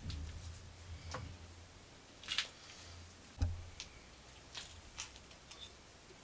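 Scattered light clicks and knocks of metal workshop parts being handled at a small lathe, with one sharper knock about three and a half seconds in.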